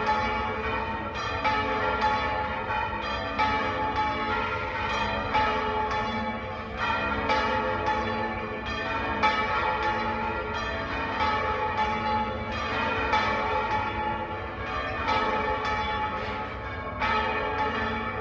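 Church bells of Málaga Cathedral ringing. Several bells are struck one after another, roughly once a second or faster, their tones overlapping and ringing on.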